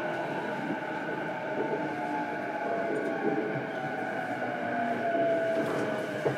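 On-board running sound of a JR East E233-7000 series electric train's motor car: the traction motor and inverter whine falls slowly in pitch as the train slows, over a steady rumble of wheels on rail. A single sharp click comes near the end.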